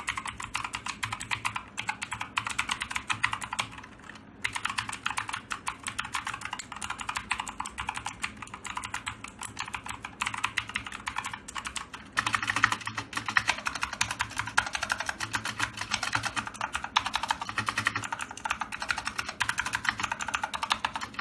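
Rexus Legionare MX3 mechanical keyboard with clicky blue switches being typed on quickly and continuously, a dense run of key clicks with a brief pause about four seconds in.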